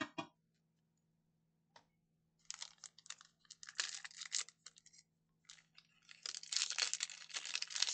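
Yu-Gi-Oh booster pack wrapper being torn open and crinkled by hand: irregular crackly rustling that starts about two and a half seconds in, pauses briefly, then comes back in a longer, denser stretch near the end.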